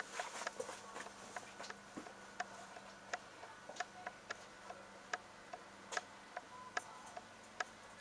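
Light rhythmic ticking, about two to three sharp ticks a second and slightly uneven, over a faint low hum.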